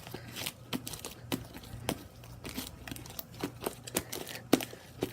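Fluffy slime made from glue and shaving cream being squished and stretched by hand, giving irregular sharp pops and clicks about twice a second.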